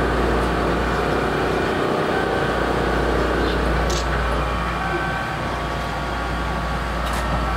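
Lifting seat of a Keihan 5000 series car moving up into its ceiling stowage, a steady mechanical hum over the car's standing equipment noise. The hum eases about three and a half seconds in, with light clicks near the middle and near the end.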